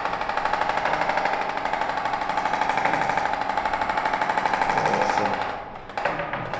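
A small motorised tool hammering rapidly and steadily with a buzzing tone. It stops for a moment about five and a half seconds in, then starts up again.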